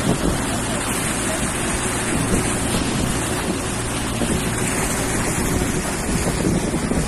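A motorboat under way: its engine hums steadily under heavy wind buffeting the microphone, with water rushing in the wake.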